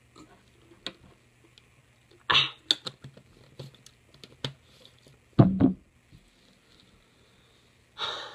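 A person drinking from a large plastic bottle: a sharp gasp for breath about two seconds in, small clicks of the plastic bottle being handled and capped, then a loud, low burp in two pulses about five and a half seconds in, and a breathy exhale near the end.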